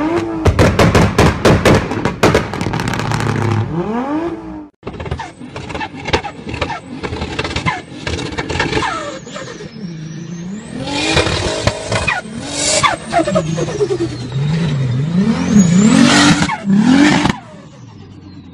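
Turbocharged car engines revving hard, with a rapid fluttering chatter from the turbo on lift-off, the compressor surging against a closed throttle. A thin turbo whistle rises and falls with the revs and drops away near the end, with a short break in the sound about five seconds in.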